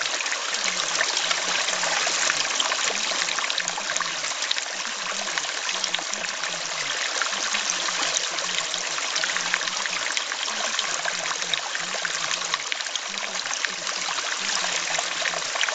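Steady trickling water of a running stream, with a faint low voice speaking underneath it, masked by the water: subliminal affirmations.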